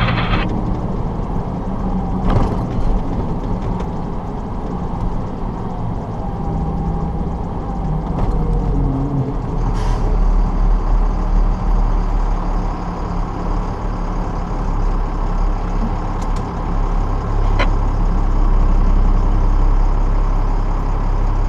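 Fire tanker truck's engine running steadily, heard from inside the cab, with a few brief clicks and knocks.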